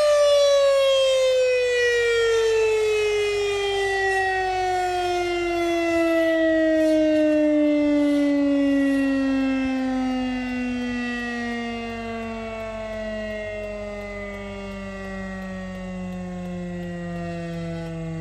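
Federal Signal Thunderbeam (RSH-10) outdoor warning siren winding down at the end of its steady Alert signal: the tone, held steady up to this point, falls in one slow, smooth glide as the rotor coasts, and is still sounding at a low pitch at the end.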